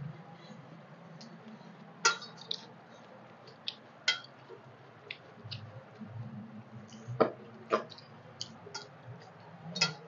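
Stainless steel plates, bowls and a serving spoon clinking several times, short sharp knocks spread out, while rice and curry are eaten by hand and dal is spooned from a steel bowl. A low steady hum runs underneath.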